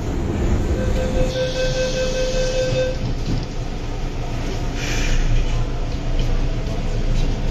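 MTR Island Line M-Train running, heard from inside the carriage as a steady low rumble. A steady high tone sounds over it for about two seconds near the start.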